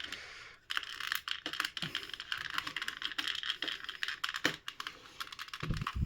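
Rapid, irregular small clicks and scrapes of plastic parts: the mosquito racket's housing and circuit board being handled and pried at by hand and tool, with a couple of duller knocks near the end.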